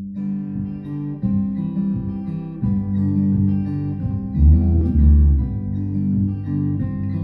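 Two guitars playing an instrumental tune together, acoustic guitar to the fore, with deep bass notes coming in a little past the middle.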